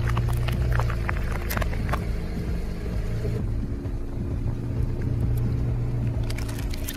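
Car engine running at low speed as the car creeps forward. Scattered sharp crackles and pops come through in about the first two seconds and again near the end as the tyre rolls over and crushes soft objects on concrete.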